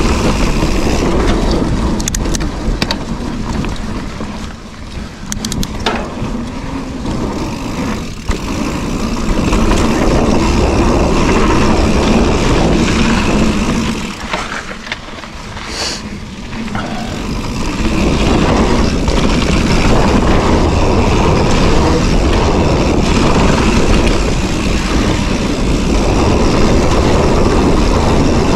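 Wind rushing over the microphone and knobby tyres rumbling on a dirt singletrack as a mountain bike descends at speed, with a few sharp clicks and rattles from the bike. The rush eases twice, briefly, where the bike slows.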